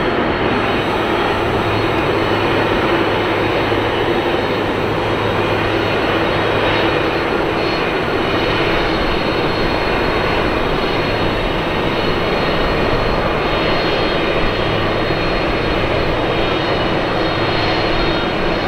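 McDonnell Douglas MD-11F freighter's jet engines running steadily as it rolls along the runway after landing: a dense, even jet noise with a thin steady high whine on top.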